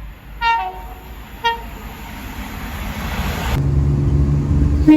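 Train horn sounding over the rising rumble of an approaching train. A low steady tone comes in about three and a half seconds in, and a loud horn blast starts near the end.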